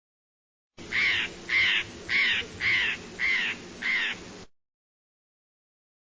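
A bird's harsh calls, six in a row, a little under two a second, cutting off abruptly.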